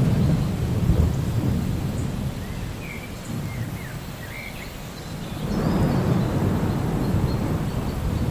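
Steady rain with rolling thunder: a low rumble at the start that fades over a few seconds, and another that swells up about five seconds in.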